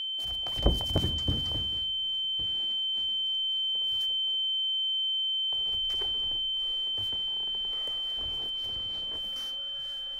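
A steady, high-pitched ringing tone, a film sound-design effect, with three sharp knocks under it about a second in.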